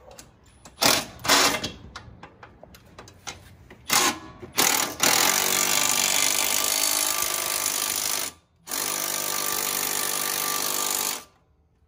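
An impact wrench tightening the shock's mounting nut, with a few knocks and clicks first, then two long runs of about three seconds each with a brief pause between.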